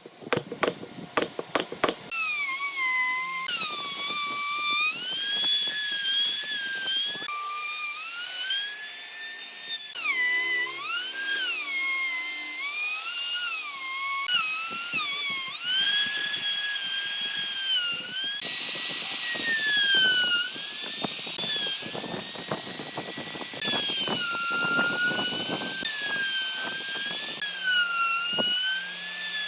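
A few sharp knocks, then a high-speed electric power tool working wood with a whine whose pitch keeps dipping and rising again.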